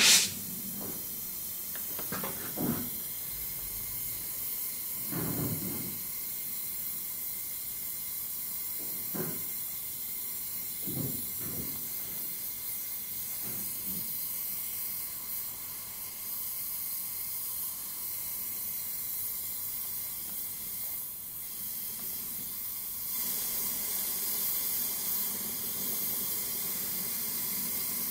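Oxy-fuel gas torch burning with a steady hiss while it heats the blade's tang, with a few soft knocks in the first half. The hiss grows louder near the end.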